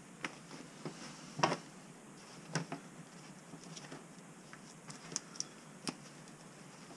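Hands handling and flexing work gloves: scattered faint rustles and sharp little clicks and taps, with a louder knock about one and a half seconds in.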